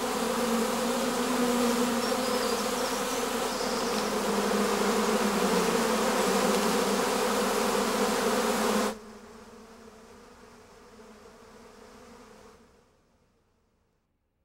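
Honeybees buzzing in a steady hum around their hive. About nine seconds in the hum drops abruptly to a fainter buzz, which cuts off to silence near the end.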